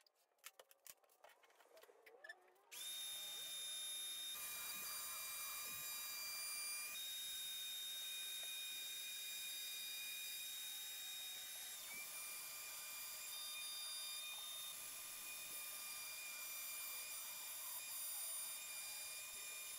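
A few faint light ticks, then about three seconds in a DeWalt plunge router starts up and runs steadily with a high whine as it cuts plywood along a straightedge guide.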